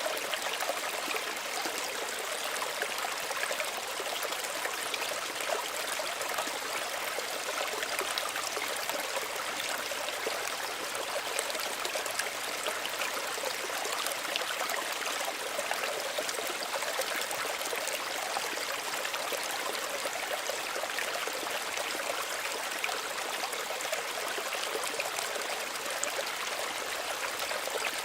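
Small stream running steadily over stones, a continuous even trickle and splash of water, mostly in the higher pitches with little low rumble.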